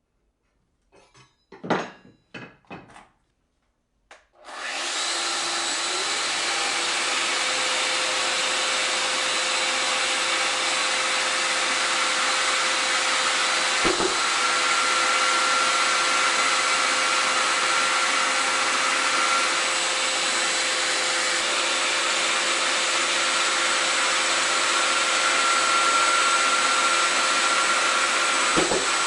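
A few handling clicks and knocks, then a Festool Domino joiner starts about four seconds in and runs steadily with dust extraction drawing air through it: a steady rushing noise with a faint whine over it. A sharp knock comes about halfway through and another near the end.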